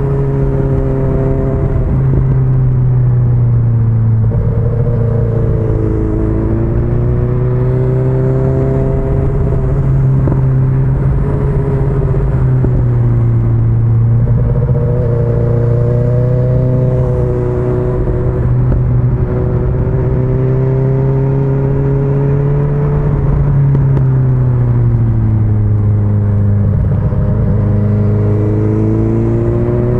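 Sport-touring motorcycle engine running steadily under way, its pitch dipping and rising gently several times as the throttle is eased and opened through the bends.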